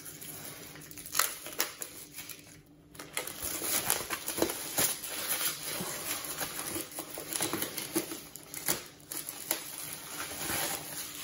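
Thick cardboard punchboards of game tiles being lifted out of a board-game box and handled: sliding, scraping cardboard with many light taps and clicks.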